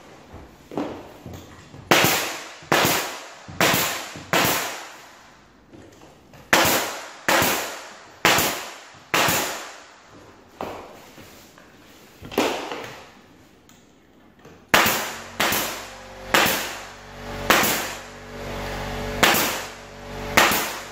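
Nails being driven into wood trim molding: about eighteen sharp shots in runs, roughly one a second, with a pause in the middle. A steady low hum comes in under the last few shots.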